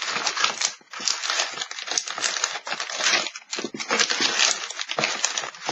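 Plastic packaging crinkling in irregular bursts as trading cards are handled and sorted.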